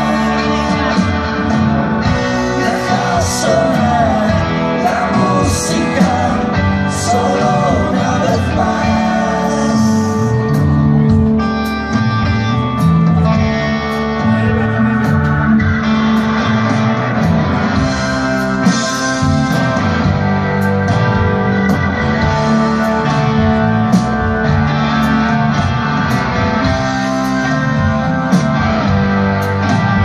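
Live rock band playing: electric guitars, drums and keyboard, with cymbal hits cutting through at intervals.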